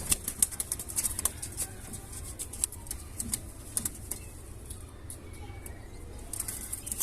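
Pigeons moving about, with wing flaps and a run of sharp clicks and taps, most of them in the first two seconds, over a steady low rumble.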